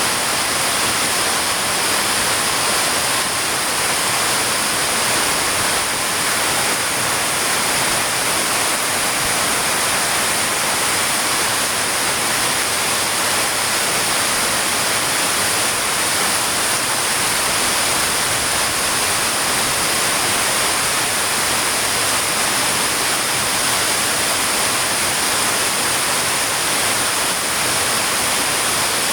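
Heavy rain falling in a steady, even hiss with no let-up.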